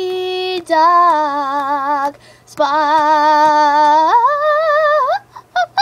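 A voice singing the words 'sparkly dog' in long held notes with a wavering vibrato. The pitch glides up to a higher held note about four seconds in, and a quick run of short notes follows near the end.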